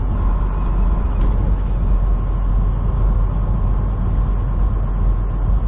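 Semi truck driving, heard from inside the cab: a steady engine and road rumble with a steady whine above it.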